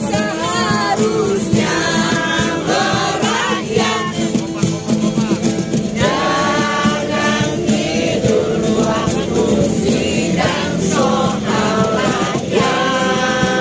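Street buskers singing a song to their own acoustic guitars, with several other voices singing along as a group.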